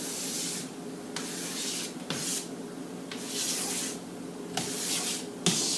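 Chalk stroking across a blackboard: about six short, scratchy strokes in a row, as lines are drawn on the board.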